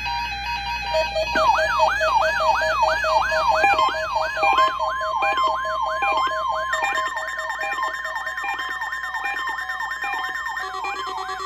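Electronic siren-like alert tone sweeping rapidly up and down, about two and a half sweeps a second, starting about a second in, over synthesized music made of stepped electronic tones.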